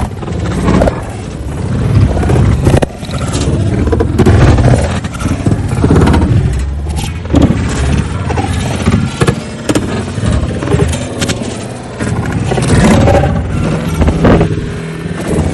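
Loud, continuous rumbling and scraping of a car body being shoved and tumbled about, with many knocks and bangs throughout.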